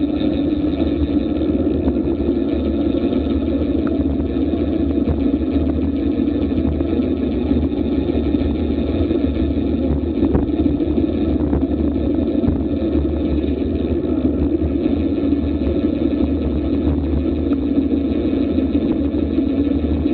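Steady wind noise rushing over an action camera's microphone on a road bike descending at speed, a low, even rumble with no breaks.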